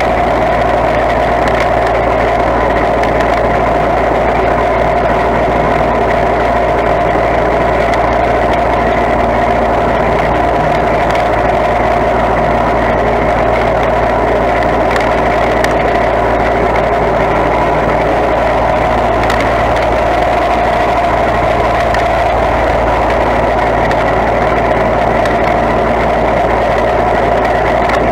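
Small riding garden tractor's engine running steadily as the tractor drives along at an even pace.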